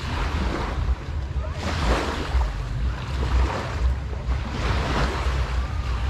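Small waves washing up on a sandy shore, the noise of the water swelling and falling every second or two, with a steady low wind rumble on the microphone.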